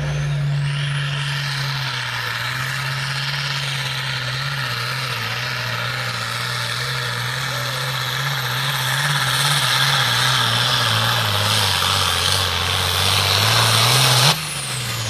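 Turbocharged diesel pulling tractor at full throttle dragging a weight-transfer sled. The engine note holds steady, then lugs lower as the sled's load builds, rises briefly, and drops off sharply near the end as the throttle comes off, with a high whine winding down.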